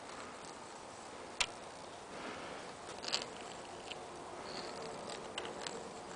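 Faint room hiss with a few scattered sharp clicks and taps, the sharpest about a second and a half in and a small cluster about three seconds in.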